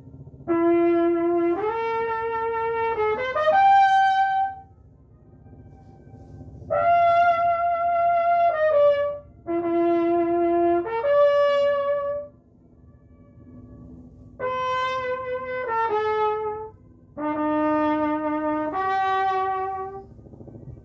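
A solo brass horn plays five short phrases of held notes stepping up and down in pitch. Faint echoes of the notes come back from the surrounding rock walls in the pauses.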